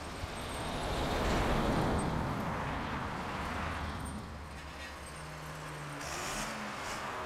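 Volvo loader tractor's diesel engine running as the machine moves through the snow; it swells about a second in and eases off again after about four seconds.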